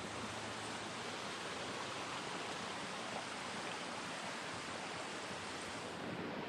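Steady rushing of fast-flowing mountain creek water.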